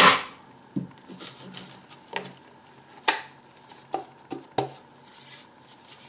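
3D-printed PLA planter parts knocking and clicking against each other as they are handled and fitted together. There is a sharp knock right at the start, then several lighter taps and knocks.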